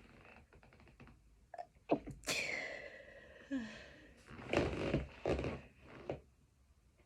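A woman sneezing several times: a few faint sniffs and catches of breath, then a sharp sneeze about two seconds in with a drawn-out voiced tail, and two or three more sneezes close together near the end.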